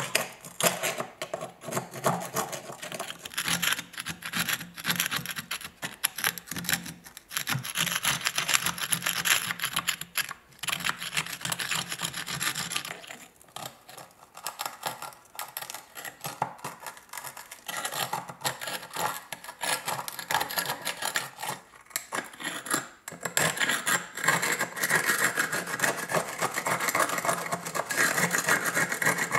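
A flat-tipped screwdriver scraping and chipping thick rust crust off a corroded First World War Mannlicher ersatz bayonet, in runs of quick gritty strokes broken by short pauses.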